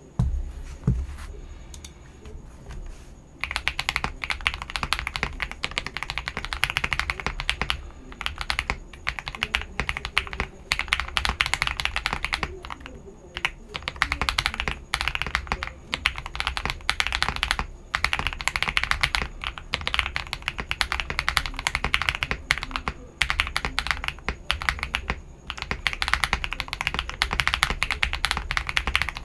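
Typing on a modded CIY GAS 67 mechanical keyboard with lubed KTT Wine Red linear switches and Finalkey V65 keycaps, a deep "thock" to each keystroke. The strokes are sparse for the first few seconds, then run fast and continuous with only brief pauses.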